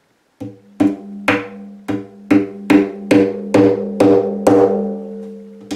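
Small hammer tapping tacks into the wooden rim of a bodhran, about two sharp taps a second. Each tap sets the goatskin-headed drum ringing with a low pitched tone that carries on between taps.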